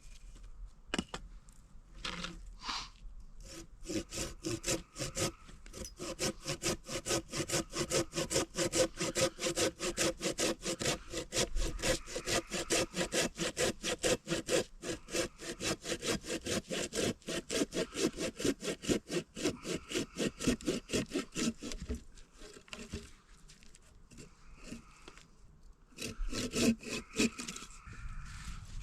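Hand saw cutting through wood in quick, even back-and-forth strokes, pausing for a few seconds near the end and then starting again.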